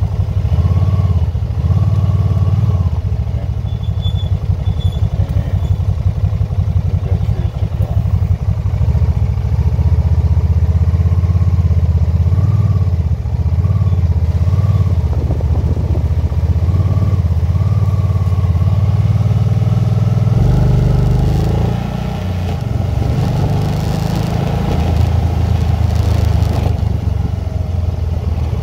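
Can-Am motorcycle's engine running under way, a steady low rumble. About twenty seconds in the engine note changes and the loudness dips briefly before it steadies again.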